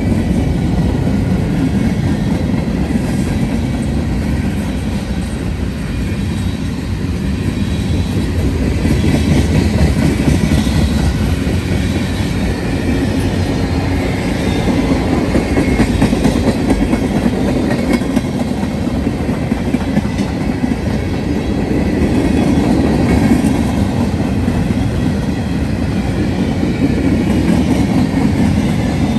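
Freight cars of a long freight train rolling past close by: a steady, loud rumble of steel wheels on the rails, with a dense run of small clicks from the wheels passing over the track.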